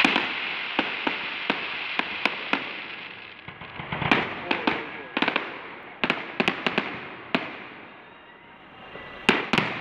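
Fireworks display: aerial shells bursting overhead in an irregular series of sharp bangs, about twenty in all, several coming in quick clusters, with a brief lull shortly before a final pair of loud bangs near the end.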